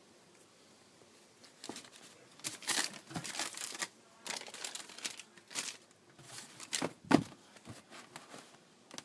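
Packaging being handled: paper or plastic rustling and crinkling in irregular bursts after a short quiet start, with a single knock about seven seconds in.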